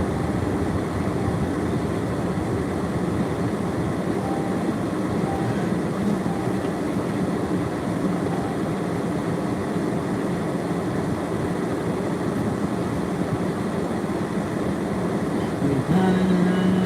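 Steady road noise and engine rumble heard from inside a moving vehicle.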